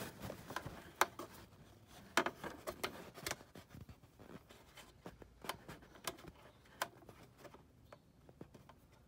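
Irregular sharp clicks and knocks of hard plastic as a windshield washer pump is pushed and worked into place in the washer fluid reservoir, the loudest about one and two seconds in.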